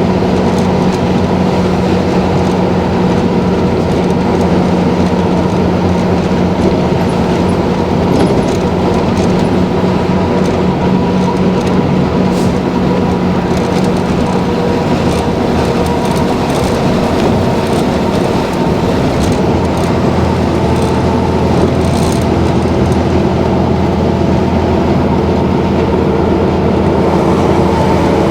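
Mercedes-Benz O-400 bus's OM 447 LA turbocharged diesel engine running steadily under way, heard from inside the bus. It makes a steady drone with a thin whine over it and light rattles, and the pitch shifts slightly near the end.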